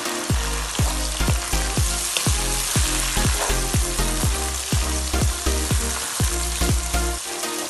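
Chopped onions and tomatoes sizzling in hot oil in a non-stick karahi, stirred with a wooden spatula that knocks and scrapes against the pan about three times a second.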